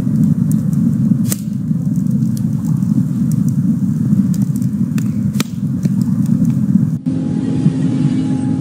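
Wood fire burning in a fire pit: a steady low rumble with sharp, scattered crackles and pops of burning wood. About seven seconds in, soft music with held notes comes in over it.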